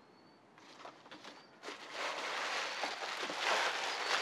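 Clear plastic packaging bag crinkling and rustling as a wrapped vest is pulled out of a cardboard box and handled, starting about a second and a half in and getting louder.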